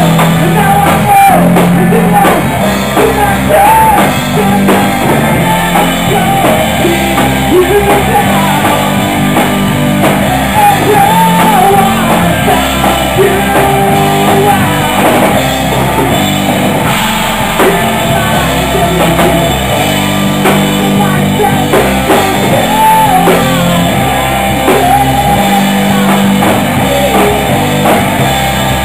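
Live rock band playing loudly: electric guitar, bass guitar and drum kit, with a man singing into the microphone.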